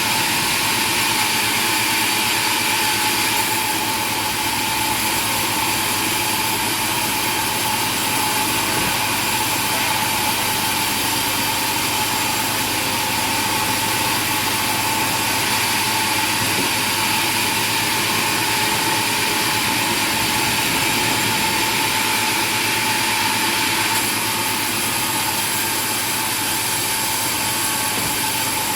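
A machine running steadily, an engine-like drone with a constant high whine that holds unchanged throughout.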